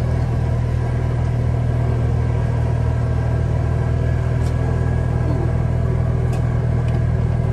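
Small riding lawn tractor engine running steadily at a constant speed, a low even drone. A few faint clicks sound over it.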